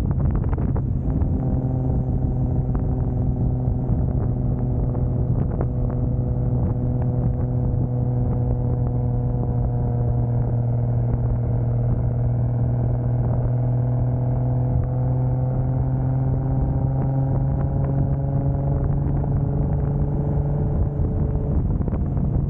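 1995 Toyota Soarer's turbocharged 2JZ straight-six running at a steady cruise: a low, even engine drone that holds nearly constant in pitch, over road and wind noise.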